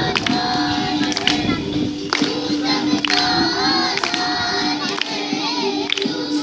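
A group of schoolchildren singing together in unison, with a sharp beat about once a second.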